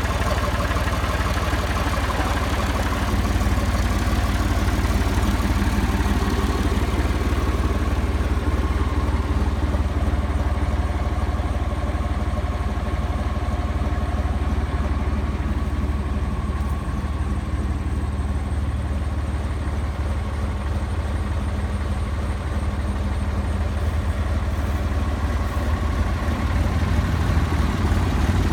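John Deere 350 crawler bulldozer's engine running steadily at a low, even speed.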